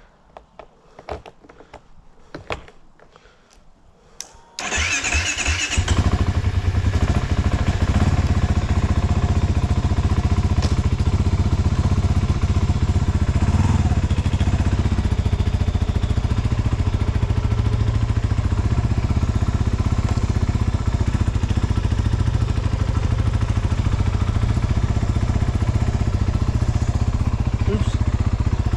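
Kawasaki KFX 450R ATV's single-cylinder four-stroke engine starting about four and a half seconds in, after a few light clicks, then running at a steady idle.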